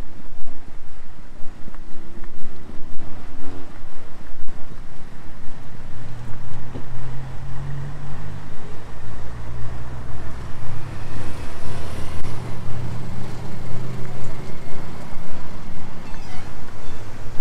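City street sound with a motor vehicle's engine running close by. Its low hum grows louder about six seconds in and holds to the end, over a steady background of traffic noise.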